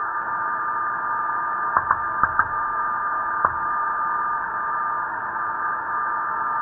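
Open radio voice-loop channel hissing with a steady thin tone, narrow and tinny like a radio line, with about five sharp clicks around two to three and a half seconds in.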